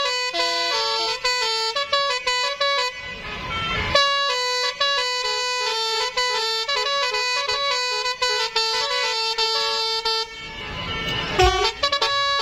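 Indonesian bus telolet basuri horn, a multi-tone melodic air horn, playing a tune in stepped held notes. The tune breaks off twice for a moment of rushing noise, about three seconds in and again near the end.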